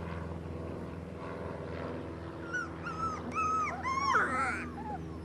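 Young Labrador retriever puppies whining: a run of short, high-pitched squeals that rise and fall, starting about halfway through, over a low steady hum.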